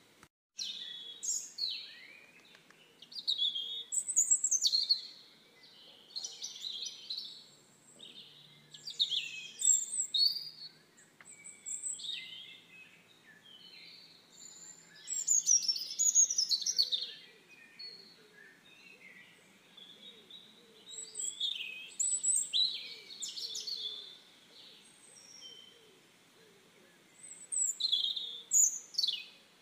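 Small songbirds chirping and singing: short bursts of high, quickly falling chirps and trills, a new burst every two or three seconds.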